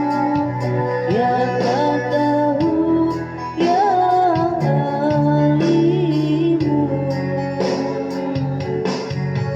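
A woman singing a melody with wavering, held notes over a backing track with guitar.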